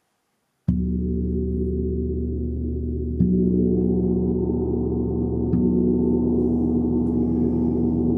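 A large hanging gong struck three times with a mallet, about a second in, again near the middle and once more a couple of seconds later. Each stroke adds to one long, rich ring of many low tones that holds steady without dying away.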